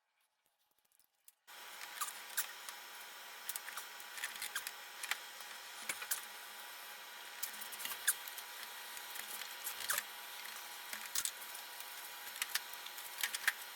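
Irregular clicks and clinks of hand tools working on metal as the alternator's bolts are taken out, over a steady hiss that starts about a second and a half in.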